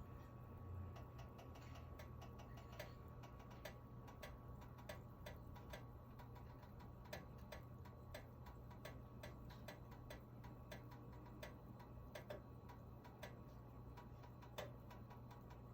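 Faint, irregular ticking and clicking, a few clicks a second, from a pot of eggs heating in water on an electric stove, over a low steady hum.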